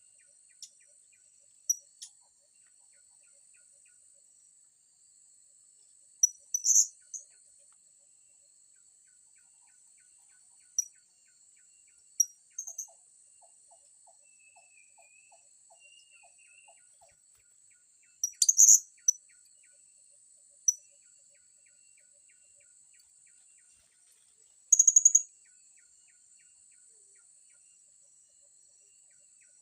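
Blue-crowned hanging parrots giving short, sharp, high chirps in scattered bursts, loudest a little past halfway and near the end. Beneath them runs a steady, high insect drone.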